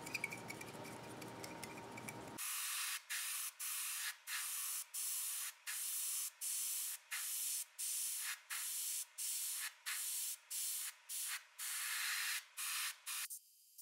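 Airbrush spraying in short bursts of hiss with brief pauses, about one and a half a second, starting about two seconds in and stopping just before the end, as a thin paint-and-flat-varnish mix is misted on in very light, transparent layers.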